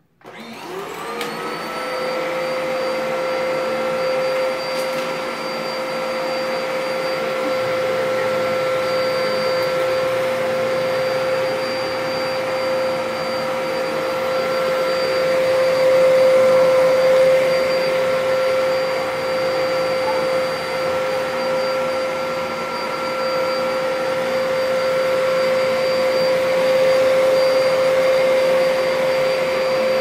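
Dyson upright vacuum cleaner switched on, its motor spinning up with a rising whine over about a second, then running steadily with a strong, even hum as it is pushed across carpet.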